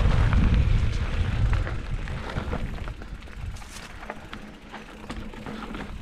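Mountain bike riding over a dirt trail: wind buffets the microphone with a loud low rumble for the first two seconds or so, then it dies down, leaving the hiss of tyres on the ground and scattered sharp clicks and rattles from the bike.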